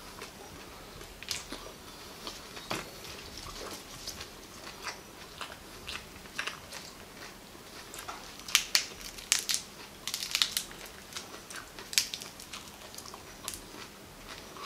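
Close-up chewing and crunching of raw, crisp agati (Sesbania grandiflora) flowers, with short wet mouth clicks. A cluster of louder crisp snaps and crunches comes about eight to ten and a half seconds in, with another near twelve seconds, as the fleshy flowers are bitten and pulled apart.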